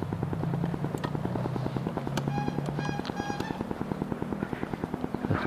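Honda Vario 150 single-cylinder four-stroke engine idling steadily through an F2Racing CL.LONG stainless full-system exhaust, a low, even putter of regular pulses. Two short high-pitched beeps sound just past the middle.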